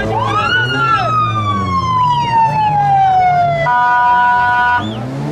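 Electronic vehicle siren: one tone rises and then slides slowly downward for about three seconds, then switches to a steady multi-tone horn blast of about a second. An engine revs up and down underneath near the end.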